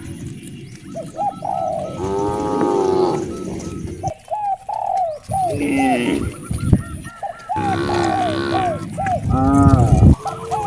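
Doves cooing in quick runs of short, repeated calls, with cattle lowing in longer, drawn-out calls about two seconds in and again near the end, over a low rumble.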